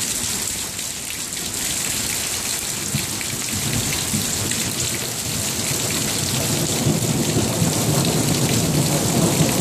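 Thunderstorm: steady rain falling, with a low rumble of thunder building from about two-thirds of the way in.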